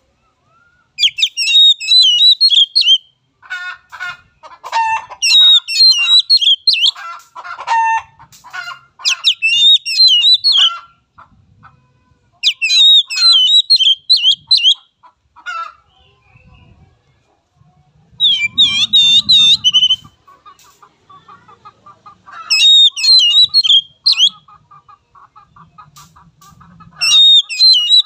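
Oriental magpie-robin singing: loud, rapid, high warbling phrases of one to two seconds, repeated about seven times with short pauses. Softer, lower chattering calls come between the phrases.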